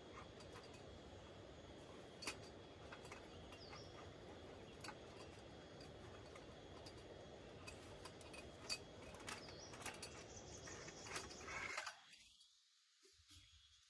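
Faint forest ambience: a low steady hiss with scattered light taps, a thin steady high tone, and a couple of short bird chirps. It drops away suddenly near the end.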